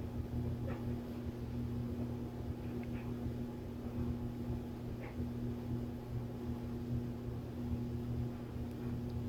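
A steady low hum at one pitch, with a few faint short chirps or clicks over it.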